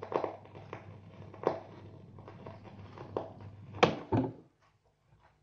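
Record player after the song ends: scattered stylus clicks and crackle from the spinning 45 rpm single over a low motor hum. About four seconds in come two louder knocks, then the hum stops as the turntable runs down.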